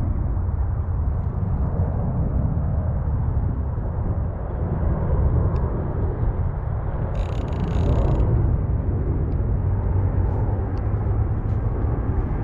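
Wind buffeting the camera microphone: a steady low rumble that swells and eases. There is a brief high hiss about seven seconds in and a few faint clicks.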